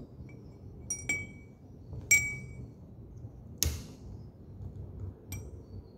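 A metal nail electrode and crocodile clips clinking against a small glass beaker as they are handled: a few short ringing glass clinks, the loudest about two seconds in, with a sharper click between them.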